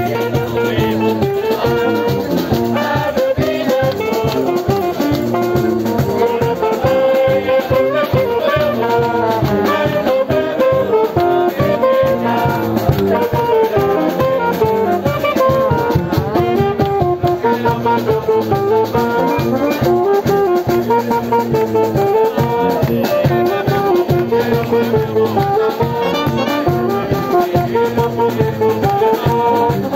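Wind band playing a tune: trombones, saxophone, clarinets and euphonium over a steady beat from snare drum, bass drum and cymbals.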